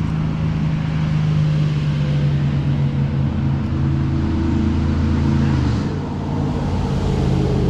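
A steady low mechanical drone, like an engine running, with a slight shift in pitch and level about six seconds in.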